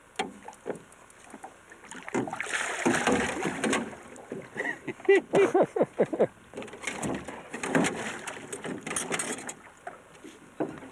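Commotion of a northern pike being landed at a small fishing boat: irregular splashing water and sharp knocks and clatter against the boat.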